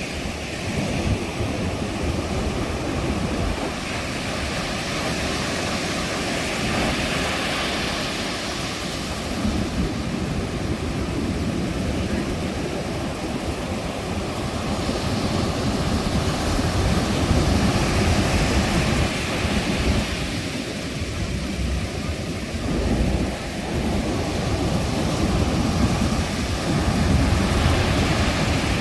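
Sea waves breaking and washing up a beach, the surf hiss swelling and easing every several seconds over a steady low rumble.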